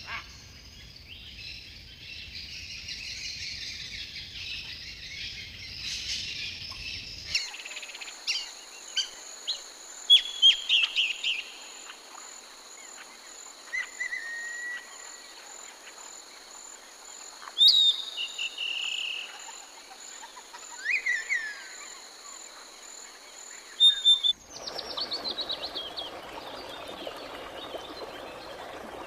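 Wild birds calling over a steady high insect trill: first a dense chorus, then, after a sudden change about seven seconds in, separate short chirps and whistles. Near the end it cuts to an even rushing noise of running water.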